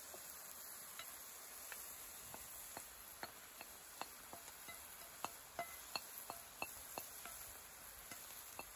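Chicken pieces sizzling faintly in oil in an enamelled pan while a slotted spoon scrapes minced onion out of a ceramic bowl, giving a run of light clicks and taps that are most frequent between about four and seven seconds in.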